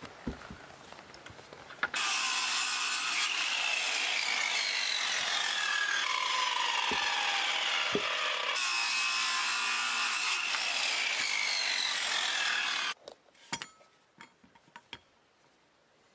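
A power saw cutting through wood for about eleven seconds, starting and stopping abruptly, its whine sinking in pitch as the blade works through the cut. A few light knocks follow after it stops.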